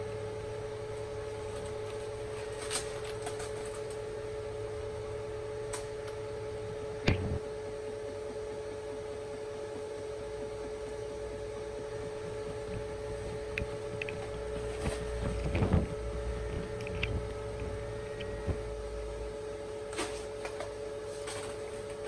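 A steady two-tone hum, with a few sharp knocks over it: the loudest about seven seconds in, and a cluster of knocks with a low rumble around fifteen to sixteen seconds in.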